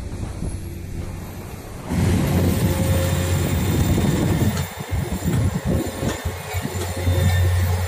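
Heavy diesel engine of a truck-mounted concrete pump running, with a steady low drone that gets louder about two seconds in and then pulses unevenly.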